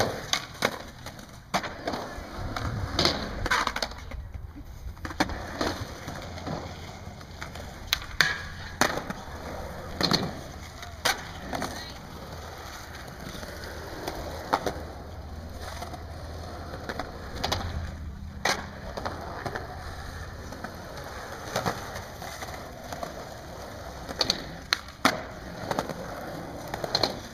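Skateboard rolling over skatepark concrete, its wheels making a steady rumble, with sharp clacks and knocks scattered throughout. The loudest clack comes about eight seconds in, and a cluster comes near the end.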